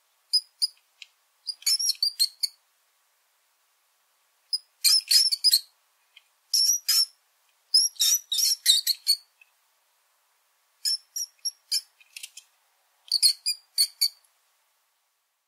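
Mouse squeaking: about seven bursts of rapid, very high-pitched squeaks and chirps, each a second or so long, separated by silent gaps.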